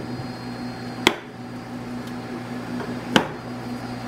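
Two sharp knocks about two seconds apart as heavy shielding blocks are set back into place against each other, over a steady machine hum.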